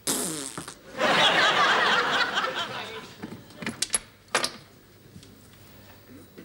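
Studio audience laughing in response to a sitcom punchline, swelling about a second in and dying away over the next two seconds. A few sharp knocks follow near the middle.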